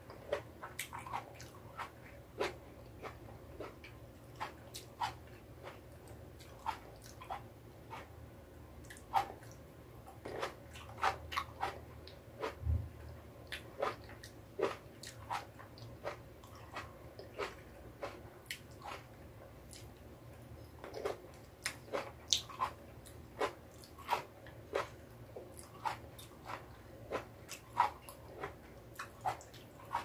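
Close-miked chewing and biting of cherry tomatoes: a steady run of short, sharp mouth clicks, about one or two a second, with one low bump about halfway through.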